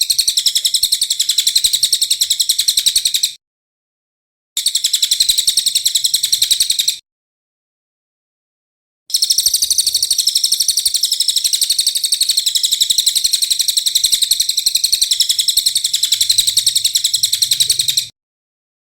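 A songbird giving a rapid, harsh, chattering 'tembakan' call: a fast stream of sharp repeated high notes. It comes in three bouts, broken by abrupt silent cuts about three seconds in and again around seven seconds in, with the longest bout running from about nine to eighteen seconds.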